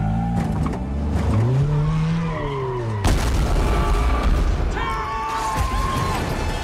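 A sports car's engine revving, its pitch rising and falling. About three seconds in comes a sudden loud crash as the car is smashed and crushed, followed by crunching debris noise, with film score underneath.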